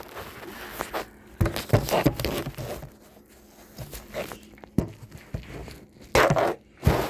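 Irregular metallic clicks, knocks and scraping from a wrench being fitted and worked on the motorcycle's front-wheel fasteners, with a loud scraping spell about six seconds in.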